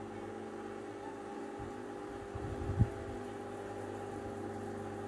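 Steady mechanical hum with a few soft, low thumps, the last and sharpest just under three seconds in, as a wooden spoon stirs boiled chicken pieces in a large aluminium pot.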